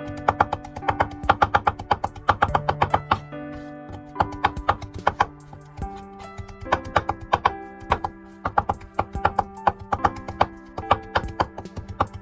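Background instrumental music with quick, evenly spaced plucked notes over a held bass line.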